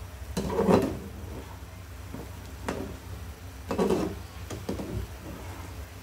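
Wooden spatula stirring chicken pieces through bubbling adobo sauce in a pan. There are two longer scraping strokes, about a second in and about four seconds in, with a few light knocks against the pan between them.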